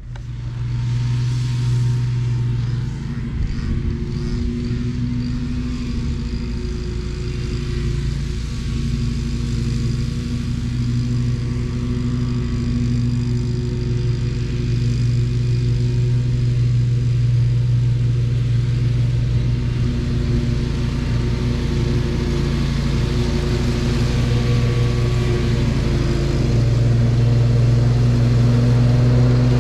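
Ferris ISX800 zero-turn mower's 27 hp engine running steadily under load while mowing. It cuts in loud just after the start and slowly grows louder towards the end.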